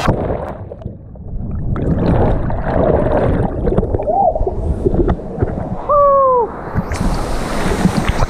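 Underwater churning and bubbling after a jump into a river, muffled and rumbling, with a couple of brief falling tones about four and six seconds in. About seven seconds in, the microphone breaks the surface and the sound opens into splashing water and wind.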